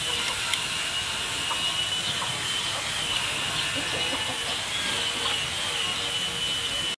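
Fish sizzling on a wire grill over charcoal: a steady hiss with a thin, slightly wavering high whine running through it. A few light clicks come from metal tongs touching the grill, the clearest about half a second in.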